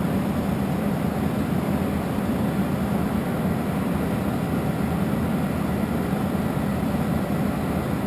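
American Pacemaker geared-head engine lathe running steadily, its headstock gears turning with the carriage and cross slide under power feed in both directions at once.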